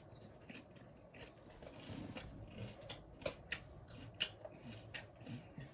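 Close-up mouth sounds of chewing crunchy nacho chips, with irregular sharp crunches that come more often in the second half.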